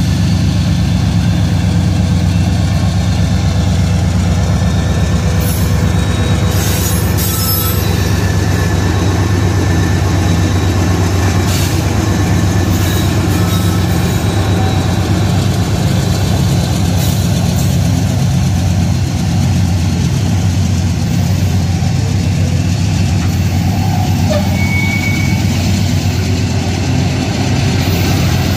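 Freight train passing close by behind BNSF diesel locomotives: a steady low diesel-engine drone throughout, with rail and wheel noise as the locomotives and then covered hopper cars roll past. A few short high wheel squeaks come about a quarter and about halfway through.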